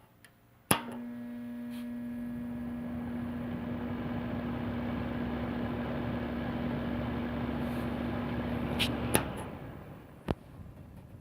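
Vornado VMH300-KR electric fan heater clicked on, its fan blowing steadily with a low hum for about eight seconds. Then a couple of clicks as it is switched off, the airflow dying away over about a second, and one more click.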